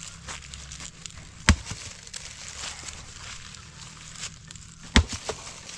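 Two sharp knocks about three and a half seconds apart, the second followed quickly by a lighter one, over faint rustling and crackling.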